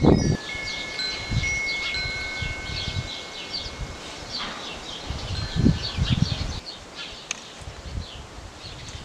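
Metal-tube wind chime ringing in the breeze: a few clear tones of different pitches, each lingering for a second or more as it fades.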